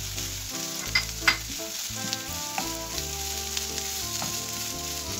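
Sliced onion, jalapeño and capsicum sizzling in hot oil in a frying pan while a wooden spatula stirs them, with a couple of sharp knocks of the spatula against the pan about a second in. Soft background music plays underneath.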